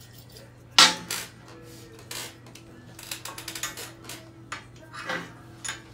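Metal tools and a machined aluminium block being handled and set down on a steel workbench: a string of sharp clanks and clinks, the loudest about a second in and a quick rattle of small knocks around the middle.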